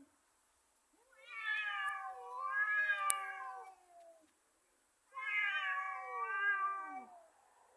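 Cat yowling: two long, drawn-out, wavering yowls, the first starting about a second in and lasting about three seconds, the second starting about five seconds in and lasting about two seconds. These are the threatening yowls of cats squaring off before a fight.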